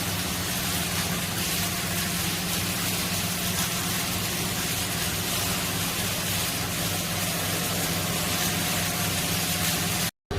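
Electric hoist running steadily: a steady motor hum with a hiss over it, cutting off suddenly near the end.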